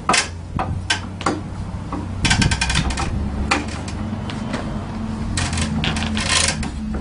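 Metal clicks and rattles from a scooter front wheel being worked up into its forks, its brake disc going in between the caliper pads. Scattered clicks, with two runs of rapid clicking about two seconds in and again near the end, over a low steady hum.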